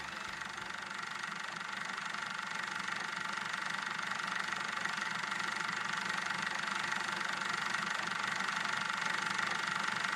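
Super 8 film mechanism running steadily: a motor whir with a fast, even mechanical clatter of film being pulled through.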